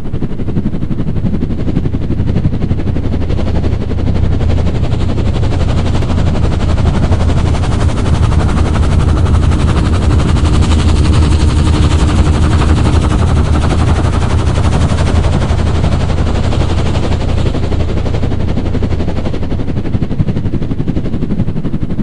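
Helicopter flying past, its rotor blades chopping in a rapid, steady beat. It grows louder and brighter toward the middle as it passes closest, then fades toward the end.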